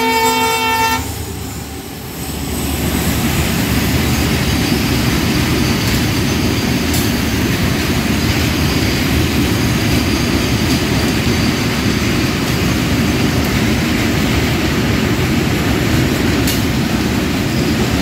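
A diesel locomotive's multi-tone horn cutting off about a second in, then a fully loaded coal freight train's wagons rolling past steadily, wheels running on the rails, with a couple of single sharp clicks.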